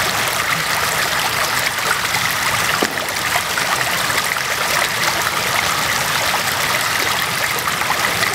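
River water rushing and splashing steadily over rocks.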